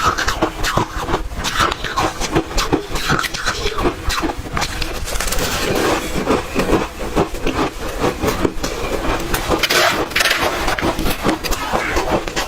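Close-miked chewing of hard ice: a dense, irregular run of crunches and crackles.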